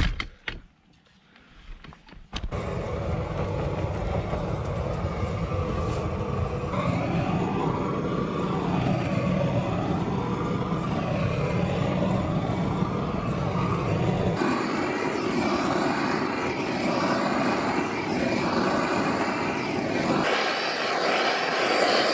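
Lincoln Electric Inferno propane roofing torch burning steadily as it heats and shrinks plastic wrap film. It starts about two seconds in after a few quiet clicks, and its tone shifts suddenly twice later on.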